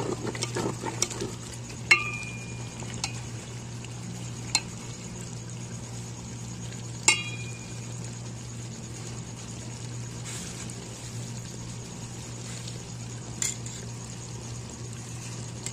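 Metal ladle stirring mutton stew in an aluminium pot, with scattered clicks and two louder ringing clinks of the ladle against the pot, about two seconds in and about seven seconds in. A steady low hum sits underneath.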